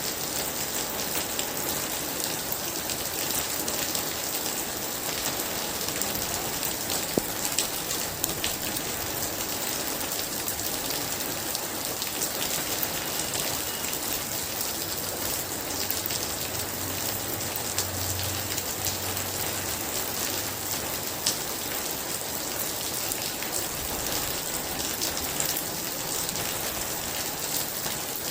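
Very heavy rain falling steadily: a dense, even hiss of rain on surfaces, thick with the small ticks of single drops.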